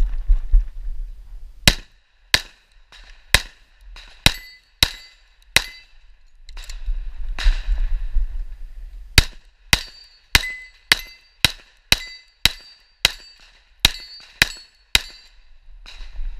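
Pistol shots fired in quick succession, about one every half second: six shots, a pause of about three seconds with a low wind-like rumble while the shooter moves, then a longer string of about a dozen more.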